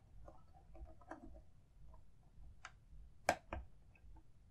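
Faint plastic clicks and taps from the parts of a Hasbro Millennium Falcon toy being handled and fitted, with a sharper pair of clicks a little over three seconds in.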